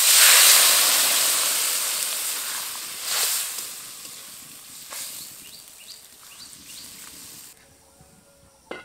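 Water poured into a hot metal karai of oil-fried vegetables, hissing and sizzling loudly at once and dying away over several seconds, with a second brief surge about three seconds in. A short clank near the end as a lid goes onto the karai.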